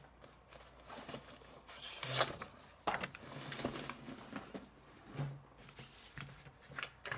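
Quiet rustling and handling noise with scattered soft clicks, and twice a brief faint murmur of a man's voice.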